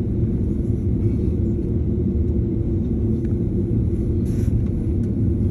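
Steady low rumble inside an airliner's cabin as it taxis slowly after landing, the engines at idle.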